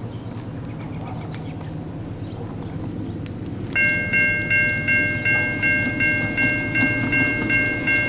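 Railroad grade-crossing warning bell starts ringing about four seconds in, a fast, even ding of roughly two to three strokes a second, over a steady low rumble. The crossing is activating for an approaching train.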